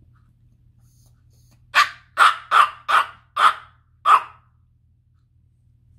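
Small Morkie puppy barking six short times in quick succession, starting about two seconds in, begging for the fried chicken on the plate.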